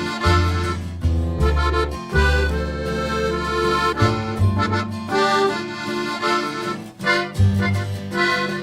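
Instrumental background music: held chords over a low bass line that changes about once a second.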